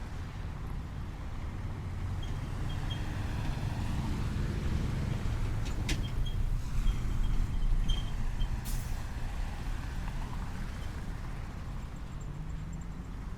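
Traffic at a busy city intersection: a steady low rumble of vehicle engines that swells as a heavy vehicle passes through the middle. A sharp click comes just before the middle, and a short hiss of air brakes follows a few seconds later.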